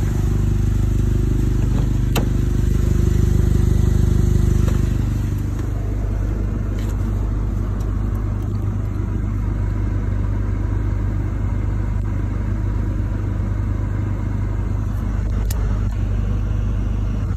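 2010 Chevrolet Malibu engine running, louder for the first five seconds or so, then settling to a steady idle.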